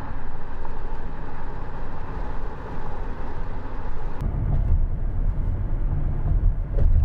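A car driving along a road: steady tyre and engine rumble with a hiss of road noise. About four seconds in the hiss drops away and a deeper rumble takes over.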